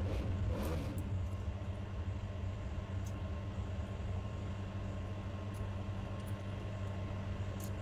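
A steady low hum with a few faint, scattered clicks from a small screwdriver working the screws on a graphics card's heatsink bracket.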